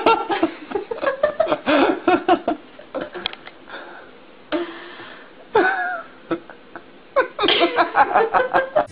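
Domestic cat vocalizing in quick runs of short, chattering meows. One longer meow falls in pitch a little past the middle, and another quick run comes near the end.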